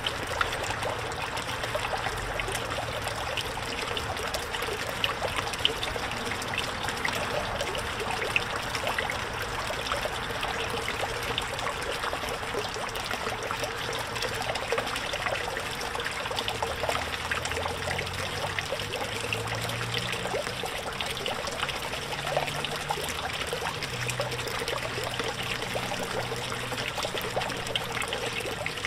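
Steady trickling and splashing of water in a small backyard pond, from a pump-fed fountain spray and a frog-shaped spitter pouring a thin stream into the water.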